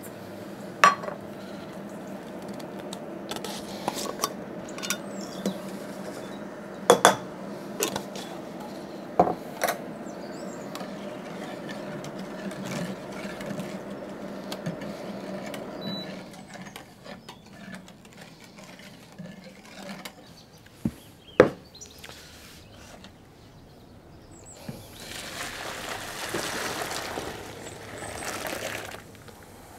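Metal utensil clinking against a stainless steel stockpot as brown sugar and pickling spices are stirred into boiling water: a few sharp clinks over a steady hum for about the first half. Near the end, hot brine is poured from the pot into a plastic tub, a rushing pour lasting a few seconds.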